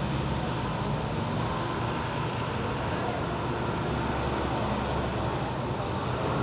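Steady rushing background noise with a low hum, without distinct scissor snips standing out.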